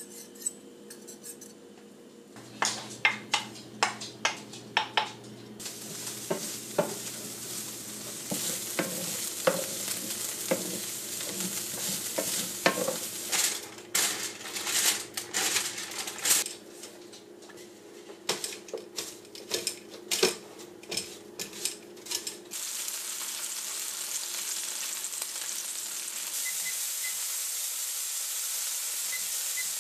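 Cooking sounds: a wire whisk clinking against a ceramic bowl, then repeated clinks and clatter of utensils and pans over a frying sizzle. From about two-thirds of the way in, a steady sizzle of pork chops searing in oil in a cast-iron skillet.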